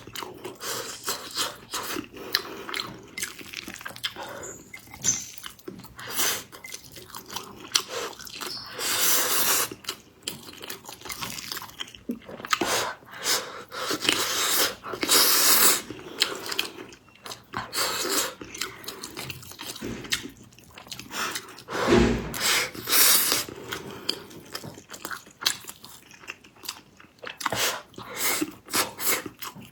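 A person chewing and biting food close to the microphone, with irregular bursts of eating noise; the food is soft, sweet and glutinous.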